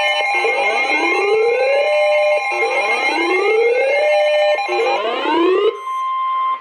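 Weather radio alert: rising siren tones repeat about every two seconds over a steady alarm tone. Near the end the siren cuts off suddenly, leaving only the steady 1050 Hz NOAA Weather Radio warning alarm tone, which heralds a broadcast warning message.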